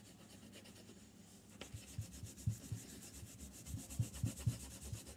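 Gold crayon scrubbed back and forth across paper on a tabletop in quick colouring strokes, about four a second, getting louder about a second and a half in.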